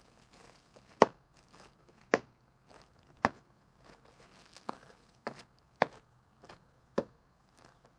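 Footsteps: a sharp step about once a second, with fainter scuffing sounds between the steps.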